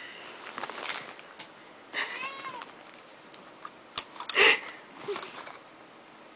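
Calico cat meowing, a short call that bends in pitch about two seconds in, with scattered light clicks and rustles around it and a louder noisy burst about four and a half seconds in.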